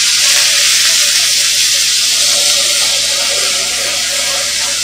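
Marinated chicken breast fillet searing in a very hot frying pan with a little oil: a loud, steady sizzle that eases slightly toward the end. The pan is hot enough to seal in the juices as they run out.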